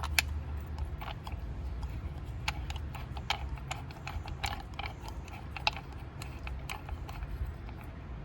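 Irregular light metallic clicks and ticks from a hand wrench working the long bolt in the crankshaft snout to turn the crank, over a steady low hum.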